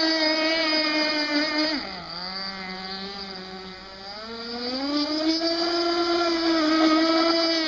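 Aquacraft Nitro Hammer RC boat's nitro glow engine running at high revs with a steady, high-pitched buzz. It throttles back to about half pitch and gets quieter about two seconds in, then revs back up about two seconds later. The engine is being run through the last of its break-in.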